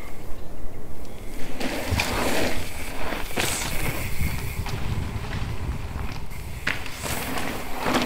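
Mountain bike tyres rolling over a loose gravel trail. The noise swells several times as riders pass close by.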